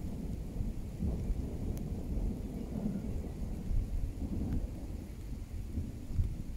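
Thunder from a passing thunderstorm line, a continuous low, uneven rumble.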